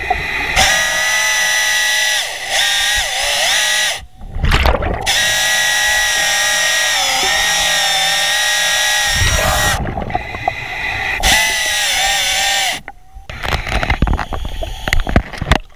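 Hydraulic chainsaw running underwater while cutting through a wooden piling, a steady whine that dips in pitch as it bites, with its chain dull. It stops briefly about 4 s and 10 s in, then stops about 13 s in, and a few irregular rumbling bursts follow.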